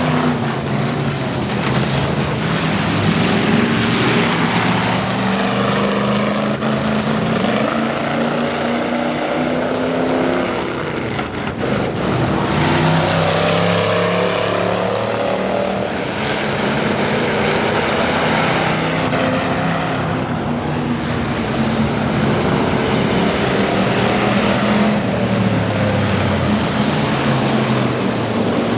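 Several race cars' engines running on the track, each rising and falling in pitch as they rev and lift off, overlapping one another.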